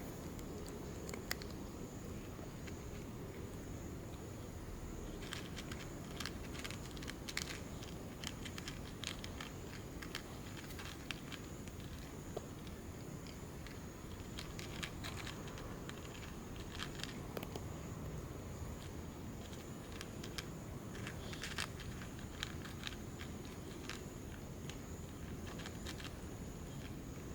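Cat chewing food, with irregular crunching clicks over a steady low background noise.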